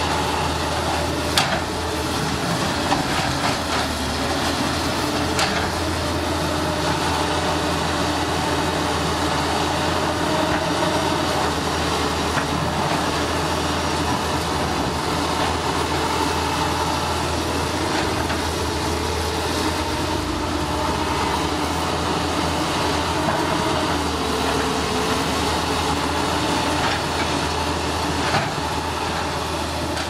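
Small crawler bulldozer's diesel engine running steadily while it pushes earth, with its steel tracks clattering and an occasional sharper clank.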